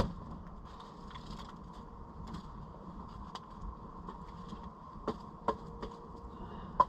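Wood fire crackling in a fire pit: a few sharp, scattered pops over a low steady rumble.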